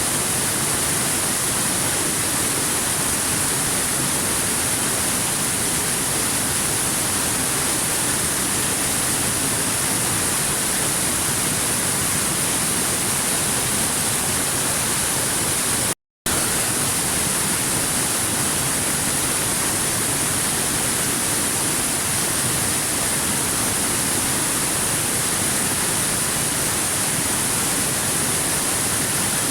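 Waterfall rushing: a steady, even hiss of falling water with a strong high edge. About halfway through it cuts out completely for a fraction of a second, then resumes unchanged.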